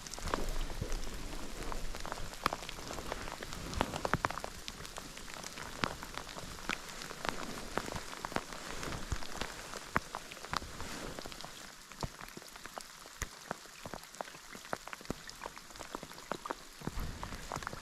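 Rain falling, with many separate drops landing close by as sharp ticks over a steady hiss; it eases off somewhat about two-thirds of the way through.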